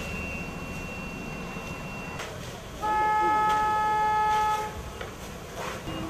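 A horn blows one long, steady note for about two seconds, starting roughly three seconds in, loud over a constant background of noise.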